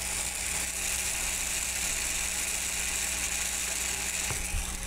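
TopSider hand-pumped vacuum oil extractor at the end of siphoning the engine oil: a steady rushing hiss in the tank as air and the last of the oil are drawn up the tube. The pickup is starting to draw bubbles, the sign that the oil pan is nearly empty.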